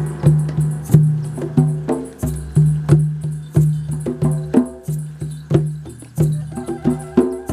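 Drum-circle music: hand drums struck in a steady rhythm, about two strokes a second, each stroke leaving a low ringing tone, with lighter rattling percussion such as shakers or a tambourine over it.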